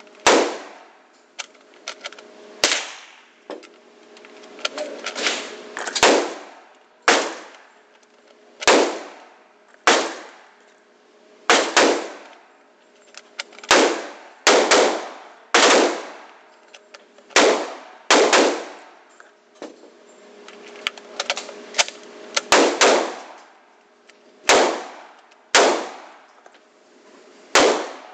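AK-47 rifle fired in single shots, about twenty in a row at an uneven pace of one every second or two. Each report rings on in the echo of an indoor range, with faint clicks between the shots.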